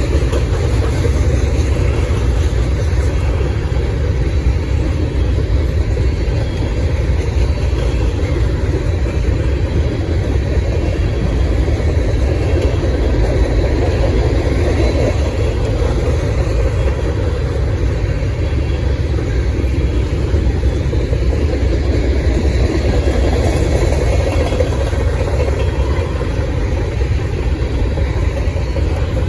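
Freight train passing, a steady low rumble.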